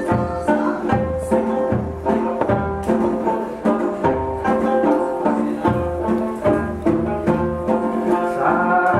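Okinawan folk music played live on the sanshin through a PA, with a bass line pulsing under the plucked notes.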